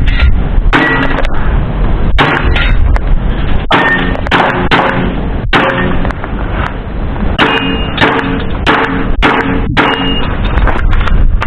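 Airsoft pistol shooting a string of steel plate targets: a rapid series of sharp cracks and metallic hits, a dozen or so about half a second to a second apart, several plates ringing briefly after being struck. A steady low rumble runs underneath.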